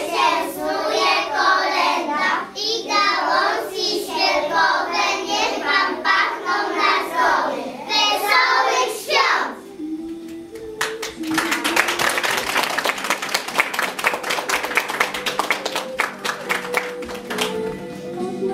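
Young children singing together in Polish, stopping about halfway through; then a few seconds of applause, many hands clapping.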